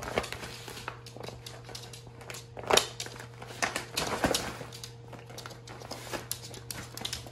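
Thin plastic crinkling and crackling in irregular bursts as a West Highland white terrier bites and drags a plastic water-filled baby play mat, loudest about three and four seconds in.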